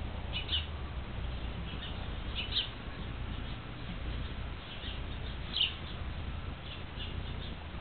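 Bird chirps: short high calls a couple of seconds apart, over a steady low rumble.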